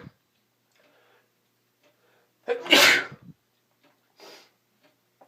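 A person sneezing from spring allergies. The tail of one sneeze ends just at the start, then one loud full sneeze comes about two and a half seconds in, followed by a short, softer breath.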